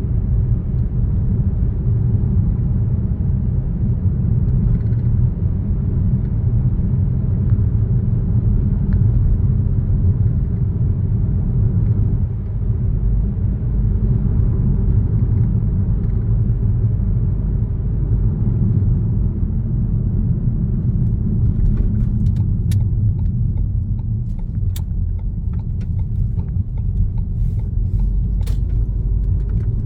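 A car driving on a road: steady low road and engine rumble. In the last third, a few sharp ticks sound over it.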